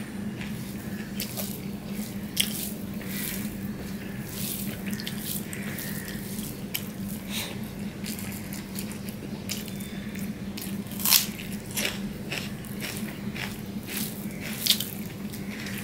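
Wet smacking and clicking of eating by hand: fingers squishing rice and mashed taro leaves on a steel plate, and the mouth chewing. A few sharper clicks stand out, about two seconds in, eleven seconds in and near the end.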